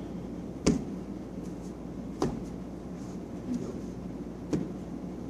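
Three sharp knocks, a second or two apart, over a steady low hum.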